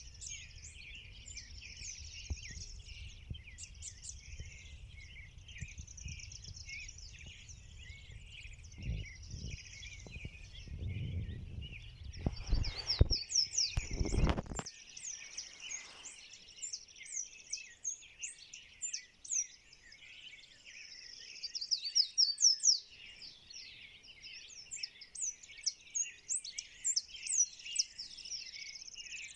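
Dawn chorus of many birds singing and chirping at once, a dense overlapping mix of trills and quick chirps. A low rumble sits under it in the first half, with a few stronger surges, and stops abruptly about halfway.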